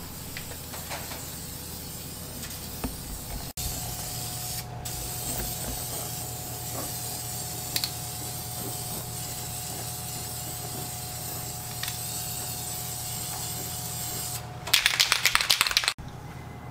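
Aerosol spray paint can hissing in long, steady sprays as it lays paint on, with a brief break partway through. Near the end comes a short burst of rapid rattling clatter, louder than the spraying.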